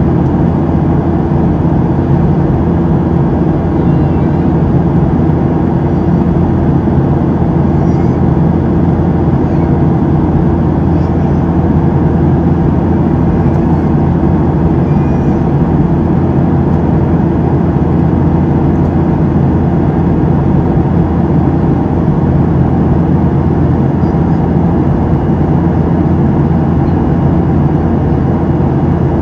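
Steady cabin drone of a Boeing 737-700 in flight: its CFM56-7B engines and the airflow heard from inside the cabin, with a low hum that holds without change.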